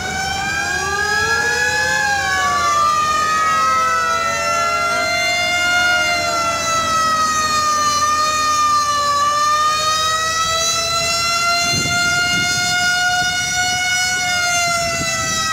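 Several antique fire truck sirens wailing at once, their pitches slowly rising and falling and crossing one another.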